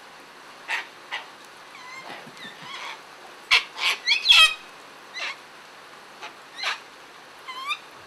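Flock of sulphur-crested cockatoos giving short, harsh screeches and squawks at irregular intervals, loudest in a cluster about halfway through. A few quick rising chirps come near the end.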